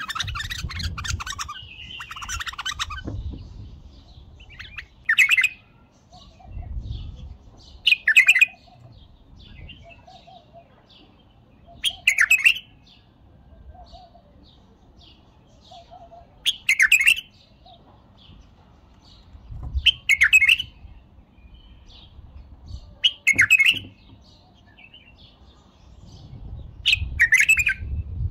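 White-eared bulbul singing: a run of song in the first few seconds, then short, loud, clear phrases about every three to four seconds, with faint chirps between them.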